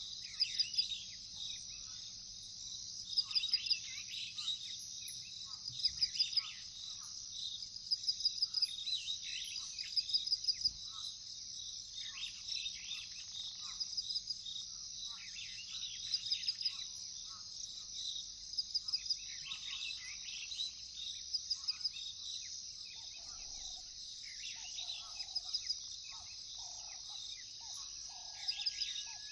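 Chorus of crickets and other insects, a steady high trilling with repeated chirps, over scattered bird calls. Past the middle, a lower call repeats about once a second, and near the end a single whistle rises in pitch.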